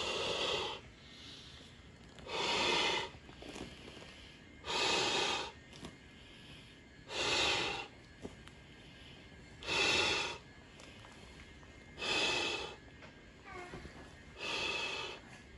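Air being pushed into a vinyl inflatable paddling pool in seven even hissing puffs, one about every two and a half seconds.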